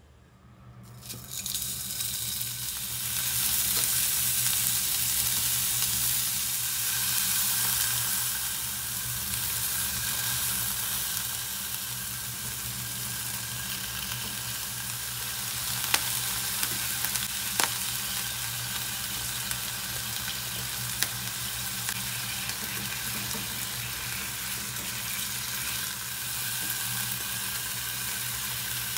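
Meat-wrapped asparagus and carrot rolls frying in oil in a non-stick pan: the sizzle comes up about a second in and then runs steadily. A few sharp clicks of chopsticks against the pan come in the middle as the rolls are turned.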